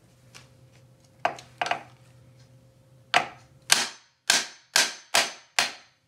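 A hammer striking the metal edge of an office chair's tilt mechanism where the gas lift cylinder is seated: two lighter knocks, then six hard ringing strikes about two a second. The blows are meant to drive out a gas cylinder that is stuck tight in the mechanism.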